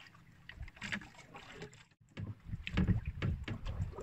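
Small wooden outrigger boat on open sea: water slapping the hull with light knocks and handling of the fishing line. It is faint at first, drops out briefly about halfway, then comes back louder with more low knocks.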